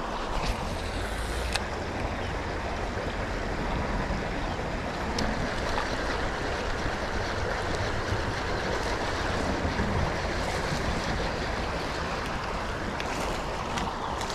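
Steady rushing of flowing creek water, with a few faint clicks.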